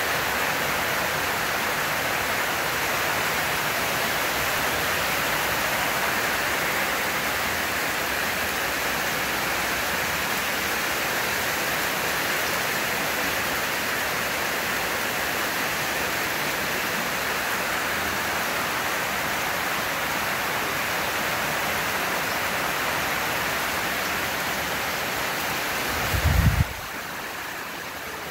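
Steady heavy rain falling. Near the end, a brief low thump, after which the rain sounds quieter.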